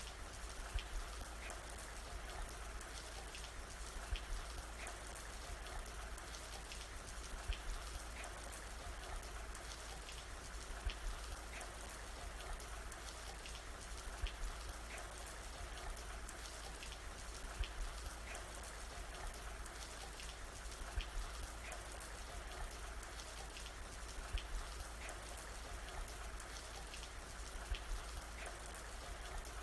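Steady rain falling, with single drops ticking irregularly on top and a low rumble underneath. A cluster of louder drops recurs about every three and a half seconds.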